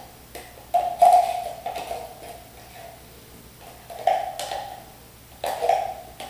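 Metal spoon scraping and knocking inside a tin can of chili to get the contents out, the can ringing briefly with each stroke. Several separate strokes, the loudest about a second in, more near four seconds and near the end.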